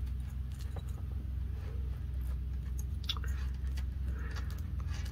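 Faint clinks and small clicks of a metal link-chain bracelet being handled, its clasp worked by fingers, over a steady low hum.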